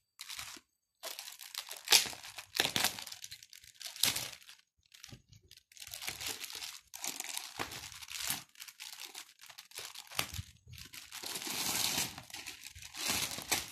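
Thin clear plastic wrapping crinkling and rustling in irregular bursts as it is pulled off a laptop.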